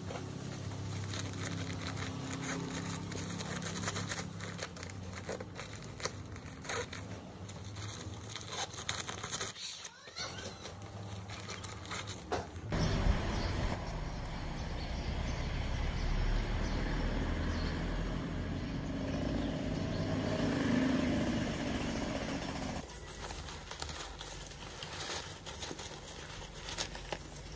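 Handling of a Matador FreeRain32 packable nylon backpack: the fabric rustling and strap buckles and webbing clicking, in scattered sharp clicks. About halfway through comes a steady outdoor rumble lasting about ten seconds. Near the end there is more fabric crinkling and clicking as the pack is stuffed into its pouch.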